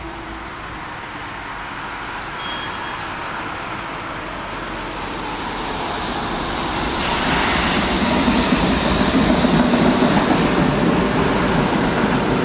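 Tram running past on its rails along a rain-wet street, a steady noise that grows louder from about six seconds in, mixed with a car's tyres hissing on the wet road. A brief high-pitched tone sounds about two seconds in.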